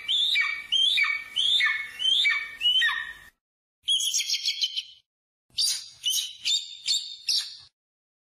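Bird of prey calling: a run of sharp, high cries, each sliding downward, about two a second, then a short trill and a burst of quick chattering notes.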